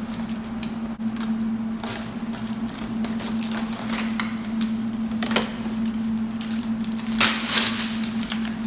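A steady low hum with scattered knocks and rattles as metal crutches are handled, the loudest clatter near the end.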